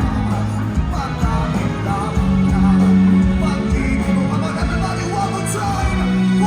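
Live band playing a song with a singer, amplified through a PA sound system, with a steady bass line under the vocals.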